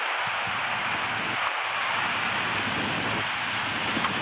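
Small waves breaking and washing onto a sandy beach: a steady rushing hiss.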